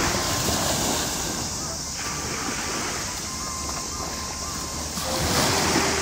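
Small sea waves breaking and washing up a sandy beach, swelling near the start and again about five seconds in.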